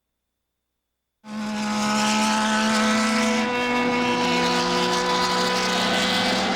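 1970s Formula 1 racing engines running at a fairly steady high pitch. The sound cuts in suddenly about a second in, after dead silence. Near the middle a second, lower engine note joins the first.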